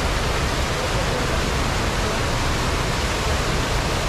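Steady rush of stream water pouring down a small rapid into a pool.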